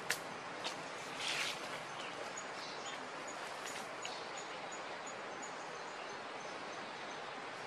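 Steady outdoor background noise. A few sharp clicks and a short rustle come in the first two seconds, with faint high chirps repeating about twice a second.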